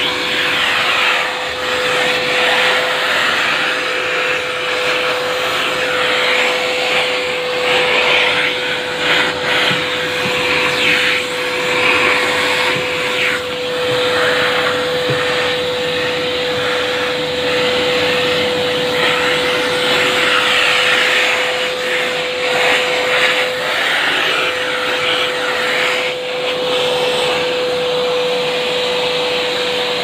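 AmazonBasics wet-and-dry vacuum cleaner running with a steady motor whine. Its all-purpose brush nozzle sucks over a surface, and the rushing airflow swells and dips as the brush moves.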